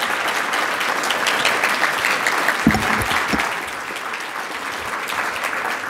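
Audience applauding: a steady crackle of many hands clapping, with a few low thumps about halfway through.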